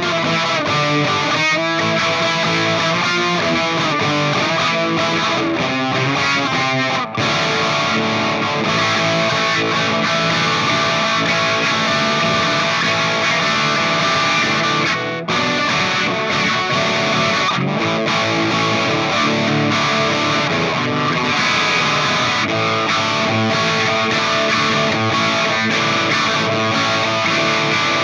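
Electric guitar played through distortion and effects, noodling continuously with dense sustained notes, with two very brief breaks about seven and fifteen seconds in.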